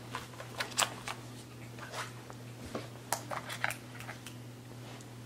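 Scattered light clicks, taps and rustles of cardboard iPhone boxes, paper inserts and plastic wrap being handled on a table.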